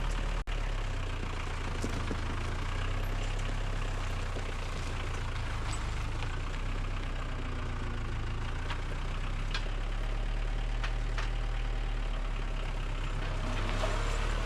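Steady low engine hum, like a motor idling, with a few light clicks and taps over it.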